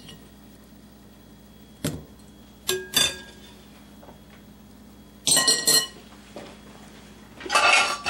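Kitchen utensil clinking and scraping against a bowl and plate as sauced chicken wings are moved onto the plate: a few separate clinks, some with a short ring, and a longer scrape near the end.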